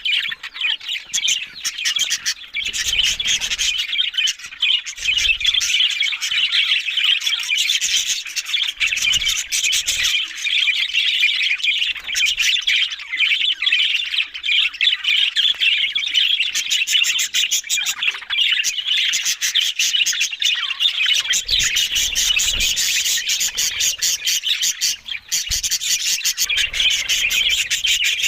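Budgerigars chattering and chirping without a break, a dense stream of quick warbles, squawks and clicks.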